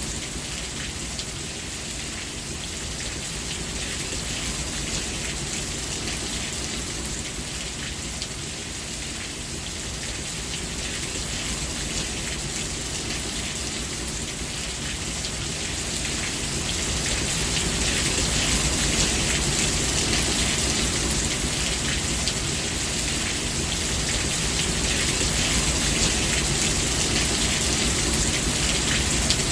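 Steady rainfall, a dense hiss of drops with fine patter, growing louder and heavier about halfway through.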